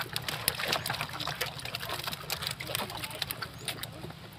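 A net full of live fish being handled: a rapid, irregular patter of small slaps, splashes and drips as the fish wriggle in the wet mesh, over a low steady hum.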